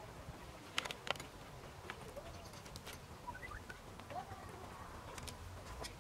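Knife and fork clicking against a plate while cutting food: a few sharp clinks, the loudest pair just under a second and about a second in, with a few more later. Faint bird calls in the background.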